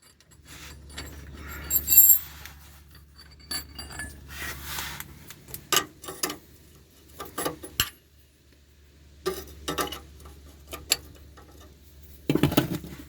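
Hand tools clinking and knocking against metal fittings as oil line connectors are checked for tightness under a van: a series of separate metallic clicks and knocks, the loudest near the end, over a low steady hum.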